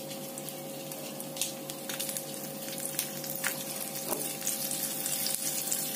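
Nigella seeds and broken dried red chillies sizzling gently in warm oil in a frying pan, with scattered small pops and crackles, over a steady faint hum.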